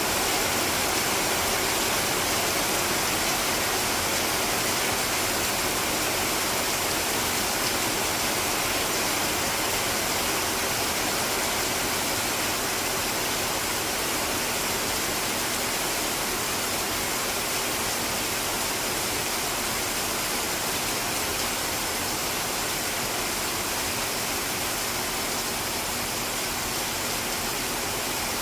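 Rain falling steadily, an even hiss with no distinct drops or breaks.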